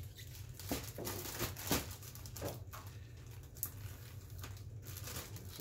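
Plastic zip-top freezer bag being handled and opened with gloved hands: irregular rustling and crinkling with small clicks and taps, over a steady low hum.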